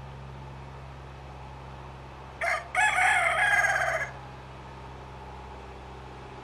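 Rooster crowing once, about two and a half seconds in: a short first note, then a drawn-out call lasting about a second and a half. A steady low hum runs underneath.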